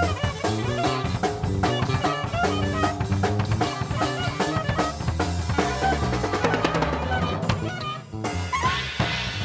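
Improvised jazz from a trio of clarinet, electric bass and drum kit playing together: the clarinet plays melodic lines over plucked bass notes, while the drums keep up busy snare, rimshot and bass-drum hits.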